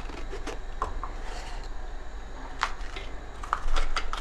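Knife cutting red peppers, with scattered light clicks and taps of the blade and pepper pieces.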